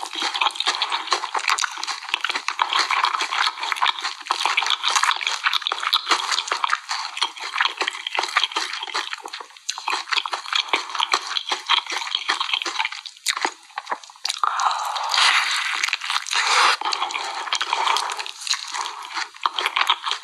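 Close-miked eating of sauce-glazed fried chicken: wet, sticky chewing and lip smacking, a dense run of irregular clicks and squelches, with squishing as the chicken is dipped in a thick creamy sauce.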